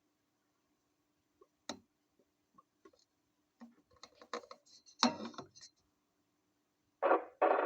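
Scattered small clicks and handling noises, thickest a few seconds in, over a faint steady hum; near the end the CB radio's speaker cuts in suddenly with a burst of noisy received signal as an incoming transmission opens the squelch.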